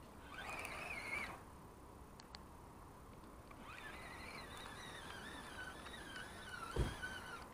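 Spinning reel on a feeder rod being cranked, its gears giving a faint, wavering whine: a short spell about half a second in and a longer one through the second half. A dull thump near the end.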